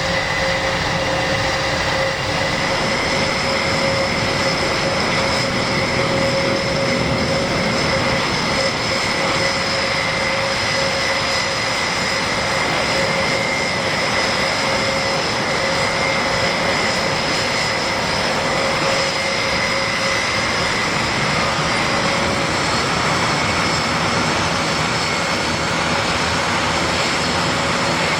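Airbus A400M's four TP400 turboprop engines running steadily: a constant whine of several fixed pitches over a dense rushing noise, with no rise or fall in power.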